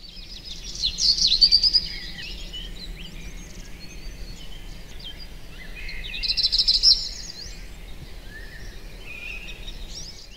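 Birds singing, a mix of chirps and trills, loudest about a second in and again around six to seven seconds, over a faint steady low hum.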